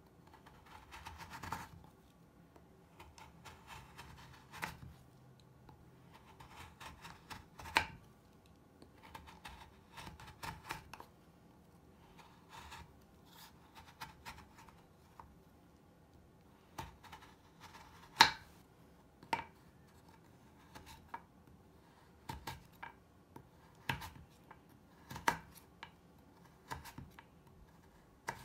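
A kitchen knife slicing thin shavings off a crumbly Lush bubble bar on a wooden cutting board: soft scraping, crunching cuts with scattered sharp taps as the blade meets the board.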